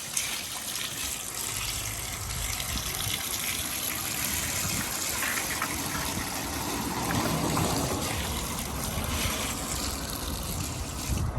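Water gushing steadily as a door mat is rinsed; the flow cuts off abruptly near the end.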